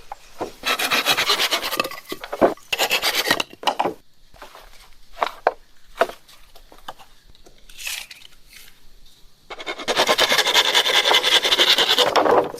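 A hand tool rasping and scraping against bamboo in three long strokes, the last nearly three seconds long, with scattered taps and knocks between the strokes.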